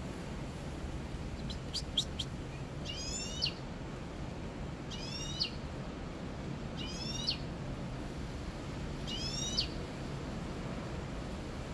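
Caged mixto, a wild finch × canary hybrid songbird, singing: a few short high chirps, then four repeated phrases of quick rising notes about two seconds apart, over steady low background noise.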